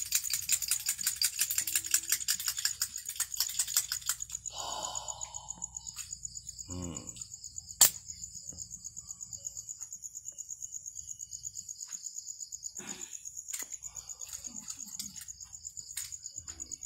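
Fast run of light taps, about eight a second, for the first four seconds. A steady high insect chirring, like crickets, pulses several times a second throughout, with a single sharp click near the middle.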